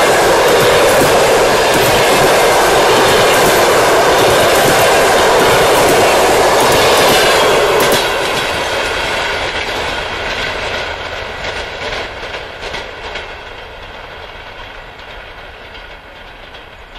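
Passenger coaches of an express train rolling past at speed, wheels clattering over the rail joints. The noise stays loud until the last coach passes about eight seconds in, then fades as the train recedes, with a few more clacks.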